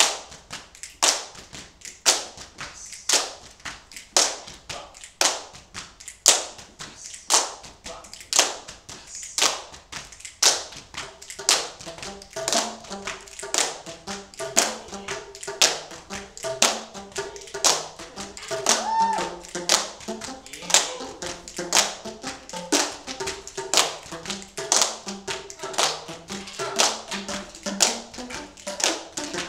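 Group hand-clapping and body-percussion taps in a steady rhythm, about two strokes a second. About twelve seconds in, hollow pitched notes from coloured plastic tuned percussion tubes (Boomwhackers) struck in a repeating pattern join the claps.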